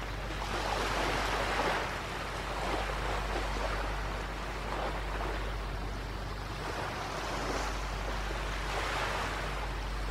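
Sea surf breaking on a beach, a steady wash with waves swelling about a second in and again near the end.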